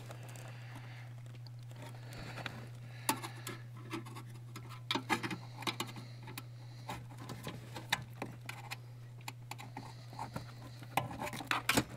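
Small, irregular plastic clicks and scrapes as a flat-blade screwdriver pushes wiring-harness clips out of a plastic bracket and the connectors are handled, over a steady low hum.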